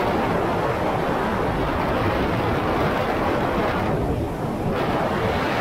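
Jet ski under way at low speed: a steady rumble of its engine and the rushing of water. The hiss thins briefly about four seconds in.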